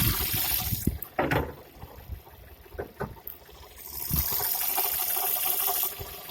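Extraneous noise from the water pump (coolant pump) of a Skoda 1.4 TSI engine, a rushing, liquid-like sound that the owner presents as abnormal. A loud hiss at the start dies away within about a second, followed by a short sharp sweep and a steadier hiss from about four to six seconds in.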